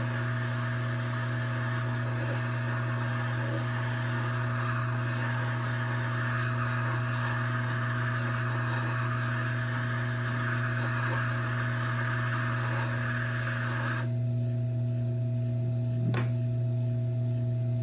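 Tormek T4 wet grinder's motor humming steadily as its grindstone turns, with the coarse side of a stone grader held against the wet stone giving a gritty grinding hiss while it grades the stone coarse. The hiss stops abruptly about 14 seconds in when the grader is lifted off, leaving the motor hum, and a single click follows.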